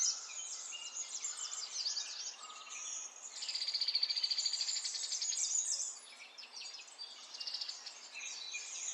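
Several birds chirping and calling over one another. About three and a half seconds in, a fast, even, high trill rises above the chorus for a little over two seconds, then stops.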